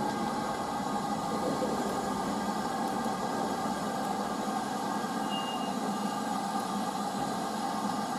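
LMS Black 5 4-6-0 steam locomotive drifting slowly in, a steady hiss of steam with no exhaust beats.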